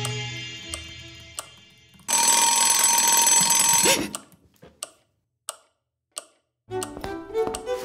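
An alarm clock rings loudly for about two seconds and cuts off abruptly, followed by a few slow, evenly spaced clock ticks. Soft background music fades out before the ringing and comes back near the end.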